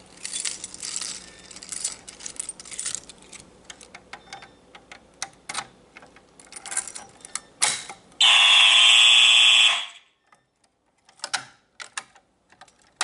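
Clicks and rattles of a BG-12 fire alarm pull station being handled and pulled. About eight seconds in, a fire alarm horn sounds loudly and steadily for about a second and a half, then cuts off suddenly.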